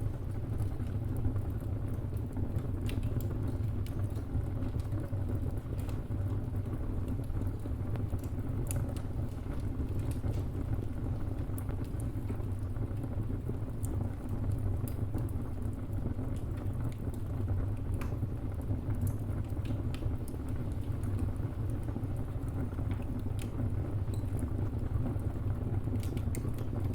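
Wood fire burning: a steady low rumble with scattered small crackles and pops, a few coming in quick succession near the end.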